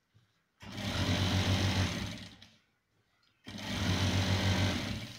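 Electric sewing machine stitching a seam through trouser cloth in two runs of about two seconds each, with a pause between.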